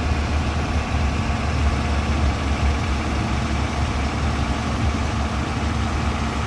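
Heavy diesel engine idling steadily, a low, even running sound with no revving.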